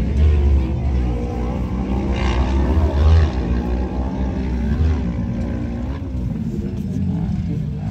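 Autocross buggy with a restricted Kawasaki ER-6 650 cc parallel-twin motorcycle engine racing on a dirt track. The engine is under load, its pitch rising and falling as the driver accelerates and lifts through the corners.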